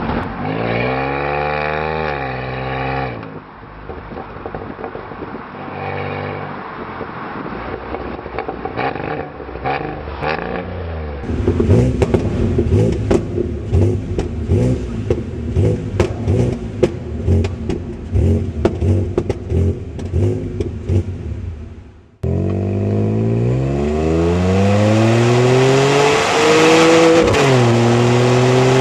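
Opel Signum's 3.2-litre V6 engine and exhaust in several spliced takes. At first the revs rise, then it runs quieter with brief blips of throttle. From about eleven seconds in there is a busy stretch with many sharp clicks over the engine. After a short break the engine revs climb steadily, dip once near the end, and climb again.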